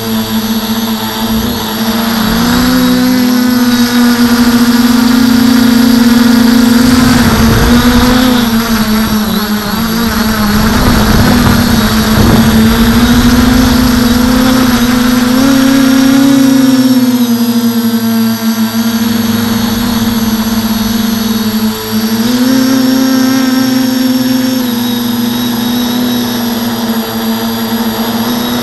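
Quadcopter's electric motors and propellers whining steadily, heard up close from the camera on the craft, the pitch stepping up and down as the throttle changes. A rough low rushing noise comes in over it in the middle.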